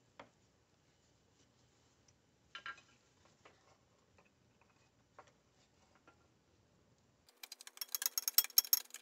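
A few light clicks and knocks as the headlight assembly is handled. About seven seconds in, a socket ratchet wrench starts clicking rapidly and steadily as the headlight mounting bolts are run in.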